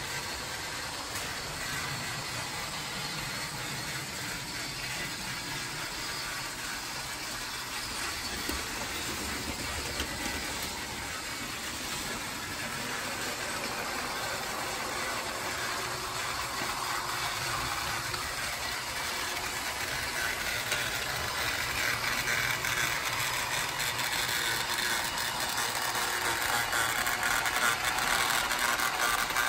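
A battery-powered TrackMaster Duck toy engine running with Oliver's coaches in tow: a steady motor-and-gearbox whir with the wheels rattling over plastic track. It grows louder over the last ten seconds or so.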